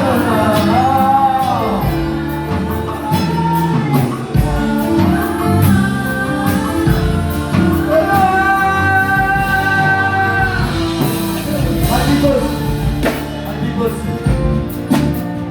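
Gospel worship music: a voice singing over a band with drums, holding one long note near the middle.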